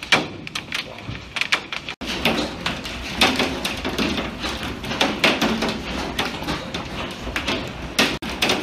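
Hailstones pelting the window glass and the house: a dense, irregular clatter of sharp knocks over the steady hiss of the storm as the hail gets heavier. It breaks off for an instant twice, about two seconds in and near the end.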